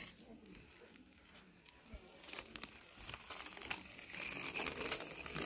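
Plastic toy quad bike's wheels rolling and scraping over sand and a wooden plank, pushed by hand: a faint gritty crunching that builds up over the last few seconds.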